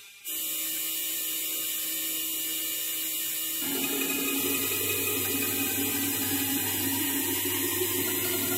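Electronic drone from a drum-loop file run through frakMSP's Fractal Voice Harmonized processor: a steady hum of many held tones with hiss on top. It drops out for a moment at the start, and about three and a half seconds in it thickens with a louder, lower layer.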